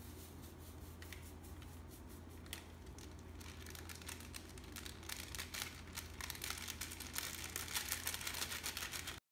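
A seasoning-mix packet crinkling as it is squeezed and shaken empty, with powder pouring onto stew ingredients in a pot. The crackling grows denser and louder over the second half, over a steady low hum.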